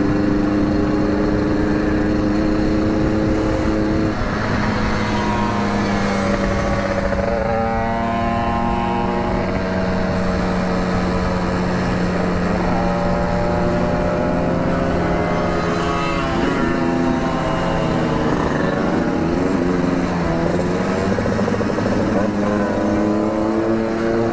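Two-stroke motorcycle engine running while riding. Its pitch climbs several times as it accelerates and falls back between the rises.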